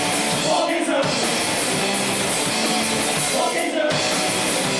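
Live rock band playing a loud, heavy song: distorted electric guitars and a drum kit, with shouted chorus vocals over the top.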